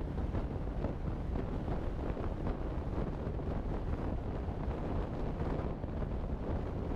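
Wind buffeting the microphone of a camera on a moving vehicle, over a steady low rumble of road noise.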